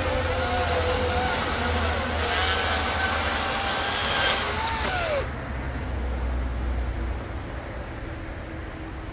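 Echo DCS-5000 battery chainsaw cutting through a thick log, its motor whine wavering under load. About five seconds in the pitch falls and the saw stops as the cut finishes, leaving a lower, quieter rumble.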